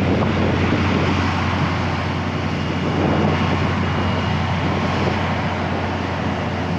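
Steady low drone of a parked LORAM rail grinder train's diesel engines running, mixed with a wash of wind noise on the microphone.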